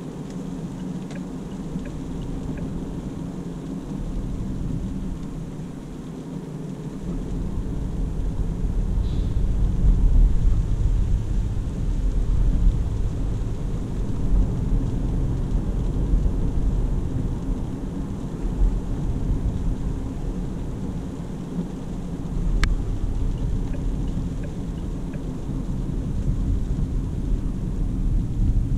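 Cabin noise inside a DongFeng Forthing T5 EVO SUV cruising on a wet road: a steady low rumble of tyres and road that grows louder about a quarter of the way in. There is one sharp tick about three quarters through.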